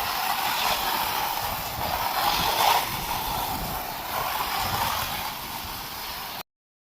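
Pressure washer spray hissing, swelling and easing, then cutting off suddenly near the end.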